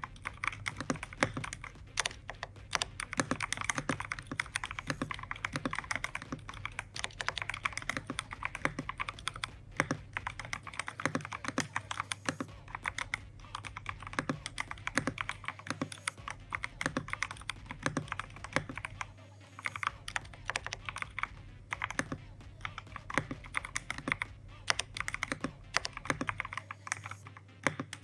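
Continuous fast typing on a VGN N75 75% mechanical keyboard: a dense, irregular run of key clacks from VGN tactile switches under double-shot PBT keycaps, in a gasket-mounted board dampened with foam and silicone.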